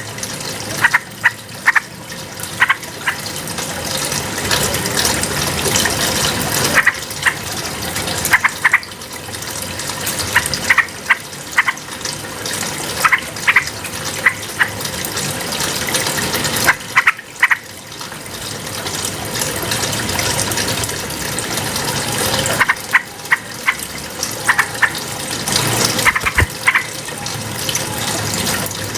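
Yellow-vented bulbul (trucukan) song: clusters of short, sharp chattering notes in repeated bursts, over a steady rush of running water.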